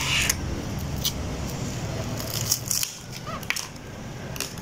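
Dry bun rusks being broken apart by hand: several short, crisp snaps and crackles over a low steady hum.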